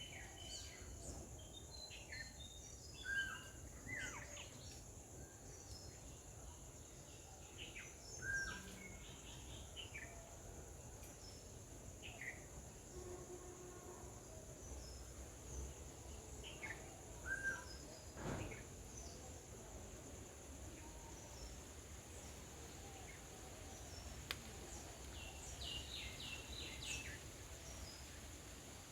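Faint outdoor nature ambience: a steady high insect drone with scattered short bird chirps and calls, one call about two-thirds of the way in standing out as a longer sweep.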